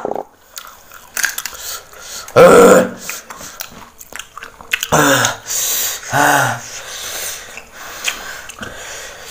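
Close-up crunching and chewing of raw cassava, with many short crisp clicks as it is bitten and chewed. A few short wordless vocal sounds break in, the loudest about two and a half seconds in and two shorter ones around five and six seconds.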